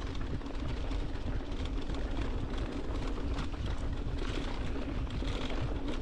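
Mountain bike rolling fast down a dirt forest trail: tyres crunching over soil, leaves and roots, the bike rattling with frequent small knocks, under a constant low rumble of wind buffeting the action camera.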